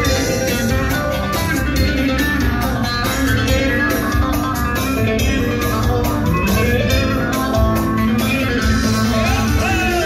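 Loud live arabesk band music, led by a plucked string instrument over a pulsing beat.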